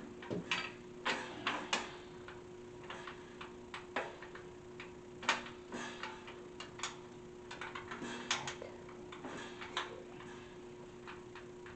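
Irregular sharp clicks and light metallic taps of a screwdriver driving a screw into the metal futon frame, quick and clustered in the first couple of seconds, then sparser.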